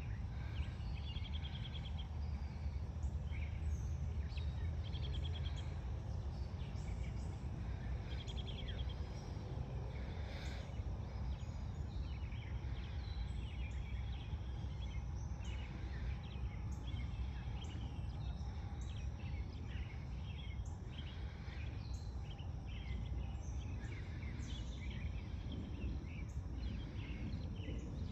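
Dusk chorus of birds chirping and insects trilling, many short calls overlapping, over a steady low rumble.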